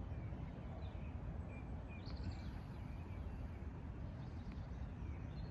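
Wind buffeting the microphone in a steady low rumble, with faint short bird chirps scattered through and a brief cluster of higher chirps about two seconds in.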